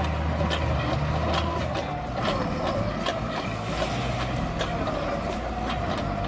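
A heavy machine's engine running steadily, with a wavering high whine above the drone and frequent sharp clicks.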